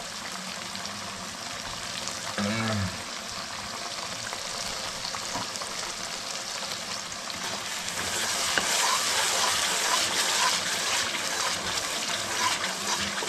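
Spiced chicken curry frying in oil in a pan, sizzling steadily, with the sizzle growing louder about eight seconds in.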